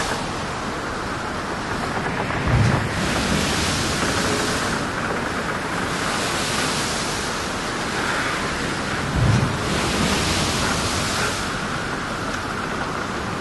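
Wind rushing over the microphone and the sea, a steady loud noise that swells and eases every few seconds, with two heavy low thumps about seven seconds apart.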